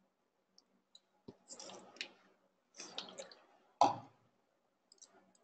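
Faint computer mouse clicks and keyboard taps, irregular and scattered, with a few short rustling bursts between them; the loudest click comes about four seconds in.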